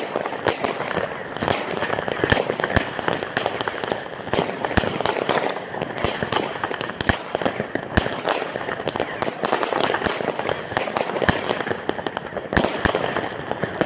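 Fireworks going off: a consumer firework battery firing small gold-star aerial shots, amid many irregular sharp bangs and dense crackling.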